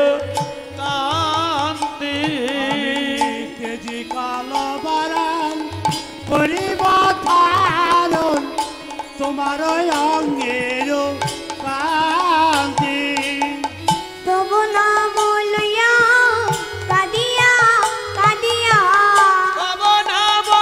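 Bengali devotional kirtan music: a wavering, ornamented melody line over a steady hand-drum rhythm.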